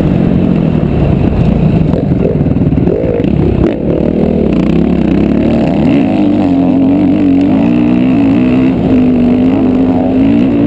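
Motocross bike engine heard from the rider's helmet camera while racing on a dirt track, revving up and down with the throttle. It drops briefly about four seconds in, then holds a steady high pitch for several seconds before falling again near the end.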